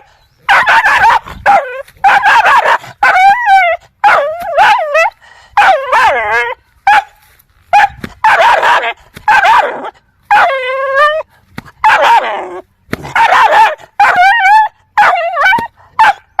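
Dogs barking aggressively in quick runs, some barks drawn out into longer, wavering high-pitched calls.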